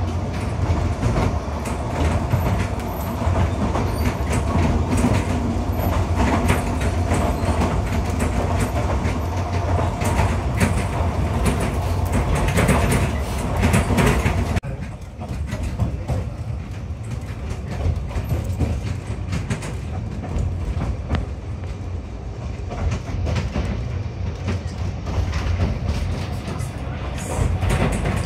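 Narrow gauge railway carriage running along the line, heard from inside: a steady low rumble with frequent rattling and clicking from the wheels and bodywork. About halfway through it changes abruptly to a quieter, duller run with fewer clicks.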